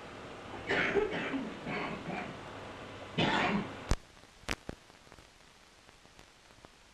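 A man clearing his throat and coughing, then a few sharp clicks as the sound cuts away, leaving only a faint steady hiss.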